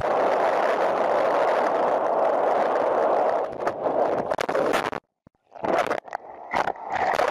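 Steady rush of water and wind noise from a speeding boat, then a run of loud, irregular splashes as spray and waves break close by. The sound drops out for about half a second around five seconds in.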